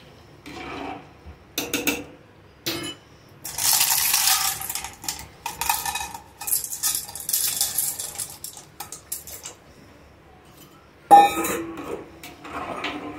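Dry macaroni rattling out of a steel bowl into a pot of water as a spoon scrapes and clinks against the bowl. A little before the end comes one sharp metal knock, the spoon on the pot, followed by stirring.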